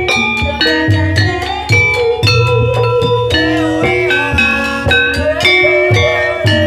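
Javanese gamelan music accompanying an ebeg (kuda lumping) horse dance: a steady run of ringing struck notes over drum beats.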